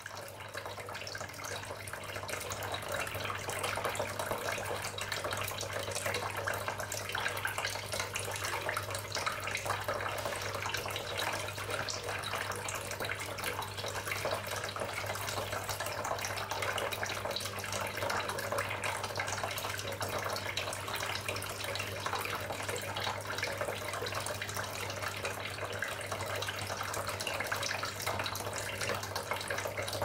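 Tabletop cement waterfall fountain running: water trickling steadily from its spouts into the basin, fading in at the start, over a low steady hum from its 15-watt submersible pump.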